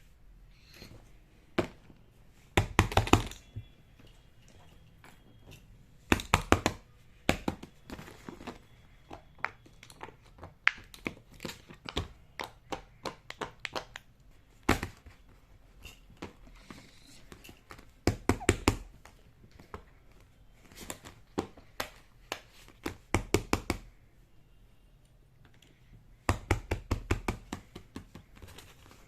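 Small plastic fidget toys being handled and set down: a scatter of clicks and taps, with several bursts of rapid knocks and thuds about 3, 6, 18, 23 and 27 seconds in, and some crinkling.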